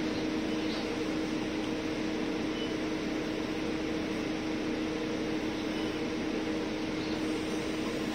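Steady cabin drone on the upper deck of a double-decker bus: the bus's running hum, holding one constant low pitch.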